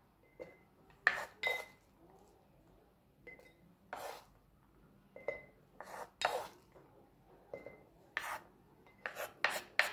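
Chopped onion and garlic being scraped and spooned into a jar: a run of short, irregular scrapes with light clinks, coming quicker near the end.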